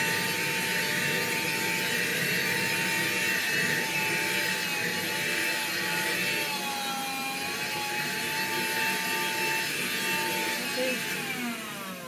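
Black & Decker cordless handheld vacuum running with a steady, slightly wavering motor whine as it sucks over a doormat. Near the end the whine falls in pitch and fades as the motor winds down.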